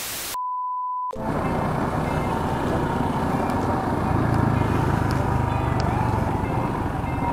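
A brief burst of static and a short steady beep, an edited-in transition effect. From about a second in come heavy wind noise on a camera mic whose foam windscreen has fallen off and the steady rumble of a motorcycle being ridden.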